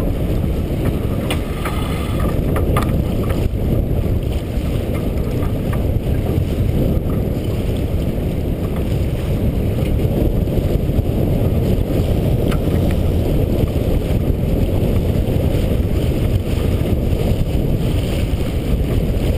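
Steady wind noise buffeting the microphone over the rush of water along the hull of a T-10 racing sailboat under way in choppy water, mostly a low roar.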